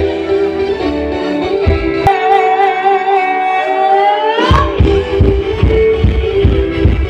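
Live stage music played loud through a PA, with guitar. About two seconds in the bass and drums drop out under one long held note that wavers and then bends upward, and the beat comes back in with heavy kick-drum hits a little past halfway.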